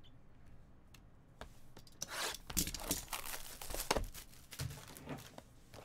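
Clear plastic shrink wrap being torn and crinkled off a sealed trading-card box by hand, in a run of rustling tears starting about two seconds in.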